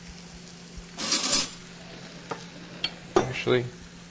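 Metal spatula scraping and clicking on a George Foreman grill's ridged cooking plate as grilled fish is lifted off: a short scrape about a second in, a few sharp clicks, then another scrape near the end.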